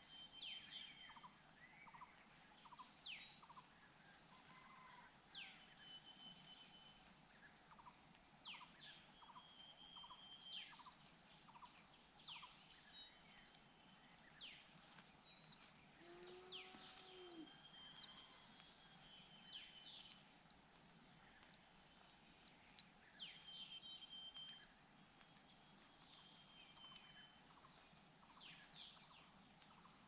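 Faint chirps and calls of birds: many short falling chirps repeated throughout, with a few held high whistles and a single lower call about halfway through.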